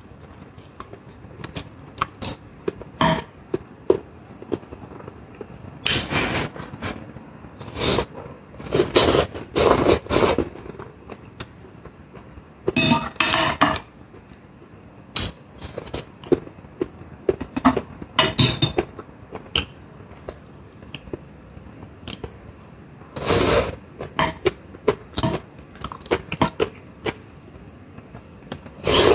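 Close-up eating sounds: a metal fork scraping and clicking on a plate, with irregular bursts of chewing vegetables.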